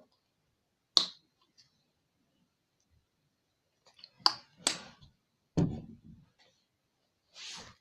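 Sharp clicks and knocks from slime-kit containers being handled: one about a second in and three more a few seconds later, then a short hiss near the end.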